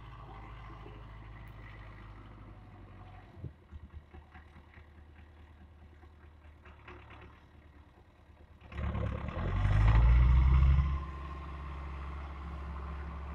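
Wheeled farm tractor's diesel engine running as it pulls a plough through straw-covered ground, with scattered clatter. About nine seconds in it grows loud for roughly two seconds, then settles to a steady run.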